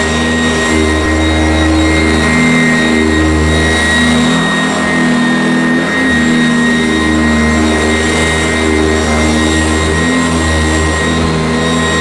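Sanitaire upright vacuum cleaner with a cloth outer bag running steadily as it is pushed back and forth over carpet. Its motor gives a steady high whine over a low hum that dips briefly twice.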